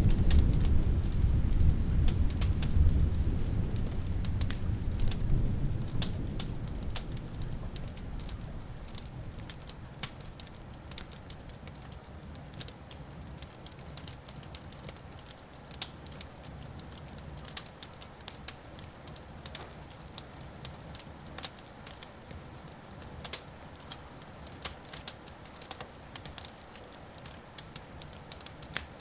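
A deep roll of thunder dies away over the first several seconds, while a wood fire crackles and pops with scattered sharp snaps throughout.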